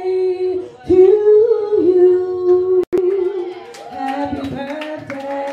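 A solo voice singing long, sustained notes that slide from one pitch to the next. The audio cuts out for an instant about halfway through.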